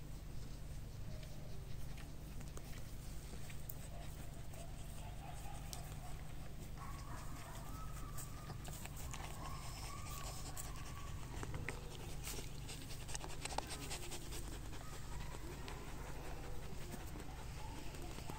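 Faint whining and howling of dogs, over a steady low rumble and scattered crackling of straw close by.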